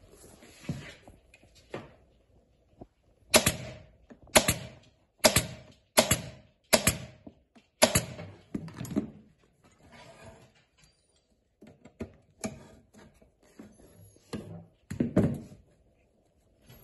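Pneumatic staple gun firing into a wooden saddle tree: six sharp shots about a second apart, then a few more, more spread out, near the end, with light handling of straps between.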